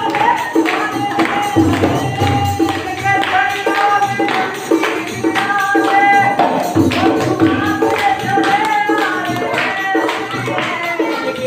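Live Indian folk music: a man singing to a quick beat on a hand-held frame drum (dafli), with a barrel drum (dholak) giving deep strokes underneath.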